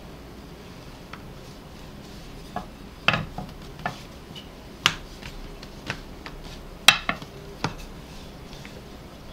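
Wooden rolling pin knocking and rolling on a pastry board as dough is rolled out and turned: several sharp, irregularly spaced clicks and taps, the loudest about seven seconds in.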